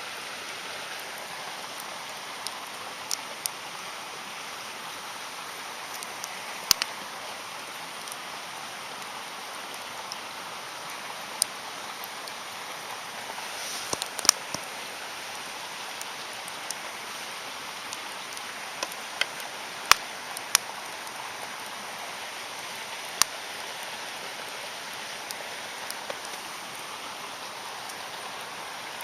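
Campfire crackling: a steady hiss with scattered sharp pops every second or two.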